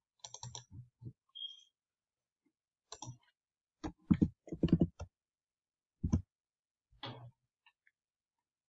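Computer mouse clicks and keyboard keystrokes in short groups, the loudest, quickest run of keys about four seconds in.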